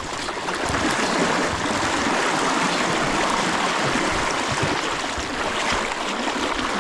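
Swift river current rushing and splashing, a steady loud wash of water.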